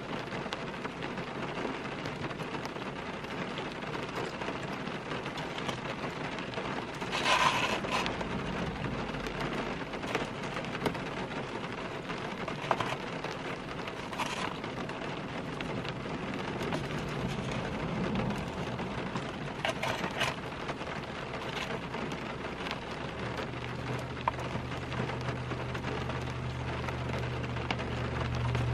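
Steady rain on a car's roof and windows, heard from inside the car, with a few brief crackles. A low steady hum comes in near the end.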